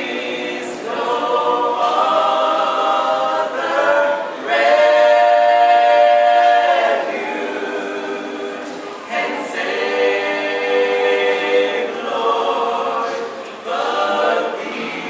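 A group of voices singing a hymn a cappella in slow phrases with long held notes, the loudest held for about two seconds near the middle.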